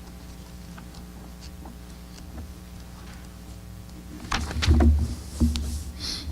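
Steady low room hum, then from about four seconds in a cluster of knocks, thumps and rustles lasting a couple of seconds, the loudest near the middle of the cluster.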